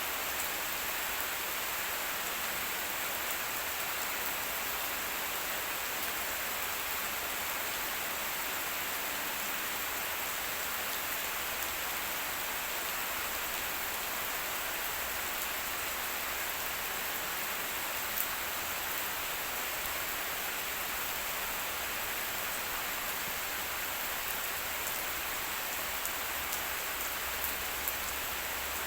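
Steady rain falling and pattering on surfaces, with a few faint drop ticks standing out.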